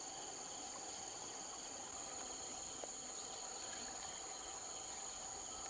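Steady insect chorus from the riverside vegetation: a continuous high-pitched trill that holds even throughout.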